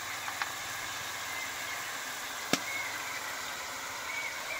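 Steady background hiss with a single sharp clink of a metal spoon about two and a half seconds in, as salt is spooned over cut bottle gourd in a metal wok.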